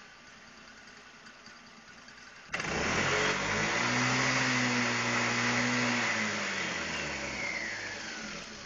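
250cc liquid-cooled engine of a homemade winch starting up: it fires abruptly about two and a half seconds in, revs up and holds steady for a few seconds, then slows and fades over the last two seconds.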